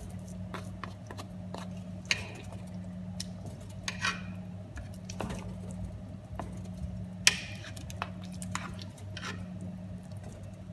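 Metal fork and wooden spatula clicking and scraping against a coated cooking pot while cooked lamb is shredded and stirred into a thick, wet porridge. The clicks come irregularly, the sharpest about seven seconds in, over a steady low hum.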